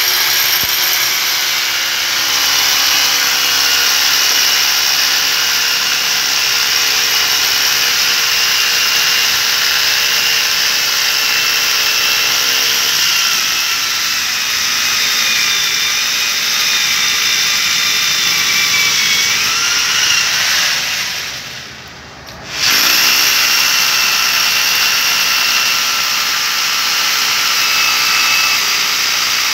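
A 2 kg rotary hammer drilling continuously into a concrete floor, its motor whining steadily over the hammering. About two-thirds of the way through it winds down and stops for a moment, then starts again and keeps drilling.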